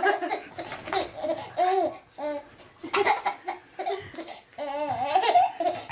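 A baby laughing and babbling in a string of short, high-pitched bursts.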